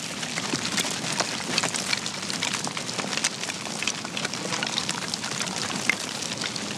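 Hooves of a mob of sheep running over dry ground: a dense, steady patter of many small clicks.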